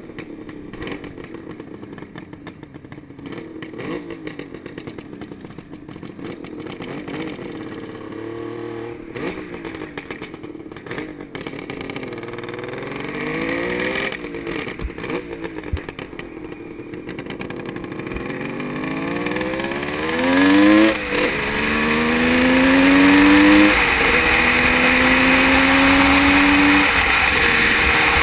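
1974 Suzuki GT750's water-cooled two-stroke triple running with throttle blips, then pulling away and accelerating, its pitch climbing and dropping back about three times at the gear changes. Wind noise on the microphone builds as speed rises.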